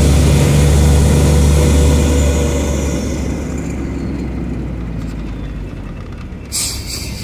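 Truck engine heard from inside the cab: a steady low drone under load that eases off about two and a half seconds in as the truck slows into traffic, with a brief hiss near the end.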